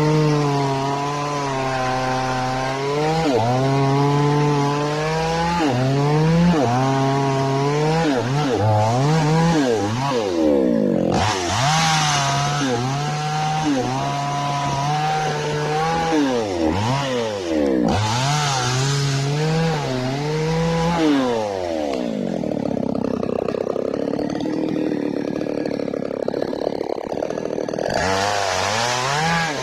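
Falcon mini chainsaw's small two-stroke engine warming up, its revs rising and falling again and again as the throttle is worked, with several short bursts to high revs and a lower, rougher-running stretch after about 22 seconds.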